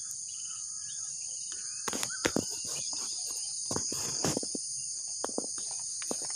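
Steady high-pitched chorus of insects, with scattered short clicks and knocks through the middle.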